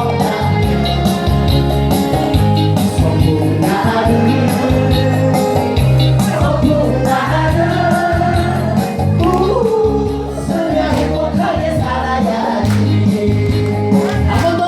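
Upbeat song with singing over a strong, steady bass beat.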